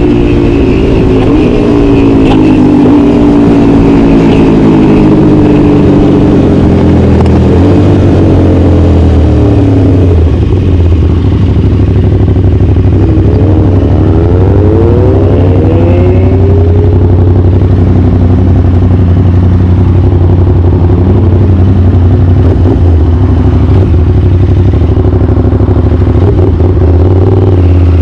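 Aprilia RS 660's parallel-twin engine through an SC Project CR-T exhaust, heard on board: revs falling for the first ten seconds or so, then settling to a steady idle, with a brief blip of the throttle near the middle.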